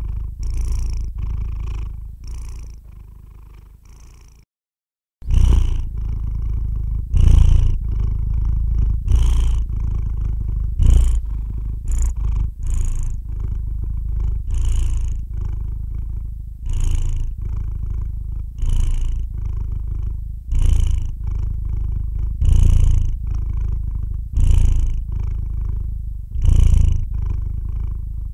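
Long-haired calico cat purring in its sleep: a steady low purr that swells with each breath, about every two seconds. The purr fades and cuts out briefly about four seconds in, then resumes.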